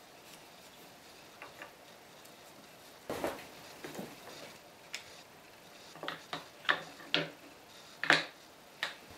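Irregular light knocks and clicks, about a dozen, a few early on and then more often in the second half, the loudest a little before the end, from small objects being handled and set down.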